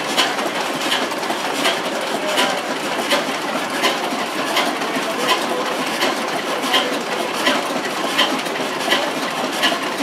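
Large vintage Dutch-made stationary diesel engine running slowly: a steady mechanical clatter with a sharp click about every three-quarters of a second.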